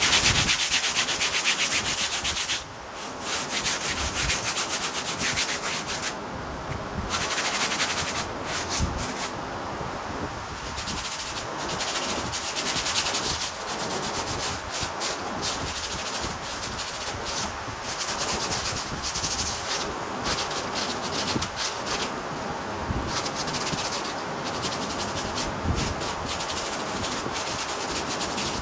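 Abrasive scuff pad rubbed by hand over a fiberglass car body in quick back-and-forth strokes, roughing up the surface so truck-bed liner will grip. Brief pauses about 3 seconds in and again around 6 to 7 seconds.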